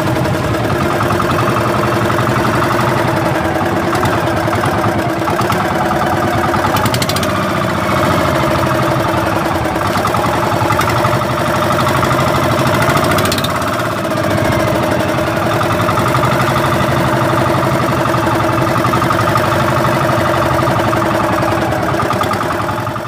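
Engine of a motorized outrigger fishing boat running steadily under way.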